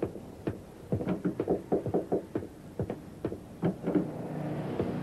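Knocking on a wooden door: a run of sharp, irregular knocks.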